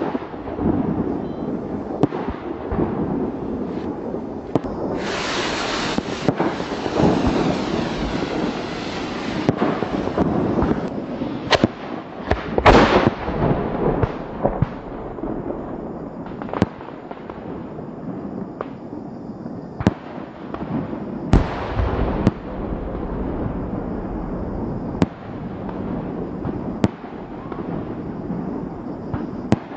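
A 200 mm aerial firework shell fired from a mortar tube and bursting, with the audio slowed down: a long hissing rush about five seconds in, then two heavy booms, the first about halfway through and the second a few seconds later, followed by scattered sharp pops.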